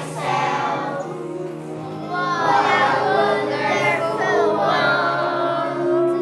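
A group of children singing a song together over instrumental accompaniment, the singing growing louder about two seconds in.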